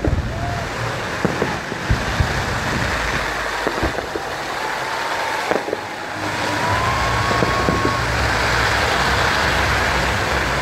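Fireworks going off: scattered sharp bangs over a dense crackling hiss and a steady low rumble, with a few faint whistles rising and falling.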